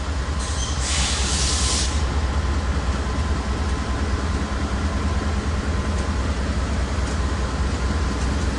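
Steady low rumble of the approaching train's GE diesel freight locomotives, an AC44C6M and a Dash 9-44CW, still some distance off, with a short hiss about a second in.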